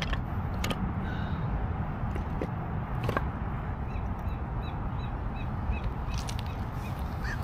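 A bird calling in a quick run of short, repeated calls about four to six seconds in, over a steady low rumble, with a few sharp clicks.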